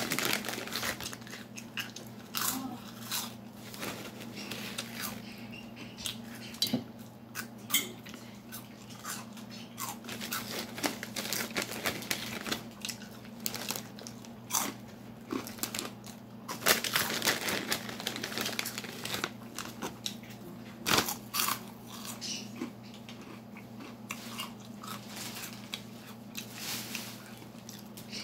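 Close-up crunching and chewing of hard, crunchy J. Higgs Cheezies hot and spicy cheese snacks, bitten off in many short, irregular crunches, with the plastic snack bag crinkling now and then. A steady low hum runs underneath.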